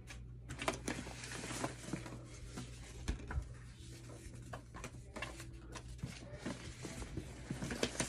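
Cards being handled and flipped through by hand: irregular rustling and light snapping taps of card stock, over a steady low hum.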